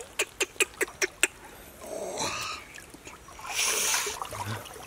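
A quick run of sharp clicks, about five a second, followed by two short bursts of rustling, scraping noise.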